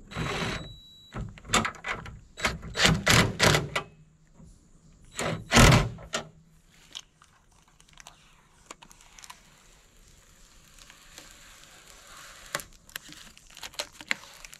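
A new truck mirror being handled on its metal bracket: a quick run of knocks and rattles over the first few seconds and one heavy thunk about midway. Then faint crinkling as the blue protective plastic film is peeled off the mirror, with a few light clicks near the end.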